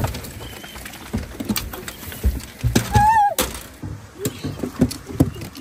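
Hunting dogs moving about inside an aluminium diamond-plate dog box, their feet and bodies knocking and clattering on the metal, with one short dog whine about three seconds in.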